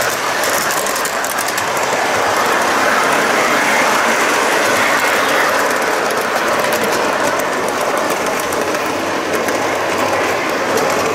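Model train running on metal track, heard from a flat car at the rear of the train: a steady rattle of metal wheels on the rails, with fine quick clicks over it.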